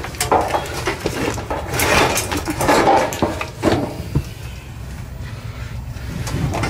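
Stored clutter being handled and shifted by hand: irregular clattering, rustling and a few sharp knocks as items are moved aside, over a steady low hum.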